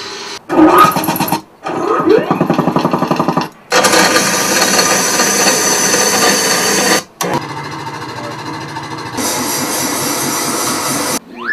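A run of short sound-effect clips played back one after another over studio speakers, each cut off abruptly with a brief gap before the next. One is a fast mechanical rattle, the others dense noisy effects, and right at the end a falling whistle-like glide begins.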